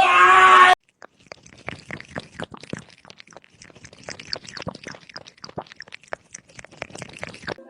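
A snatch of music with singing that cuts off under a second in, then a cat chewing: a quick, irregular run of soft crunches.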